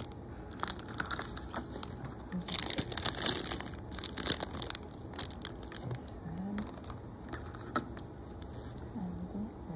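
Crinkly toy packaging being handled and torn open, in irregular crackles with a denser burst of crinkling a few seconds in.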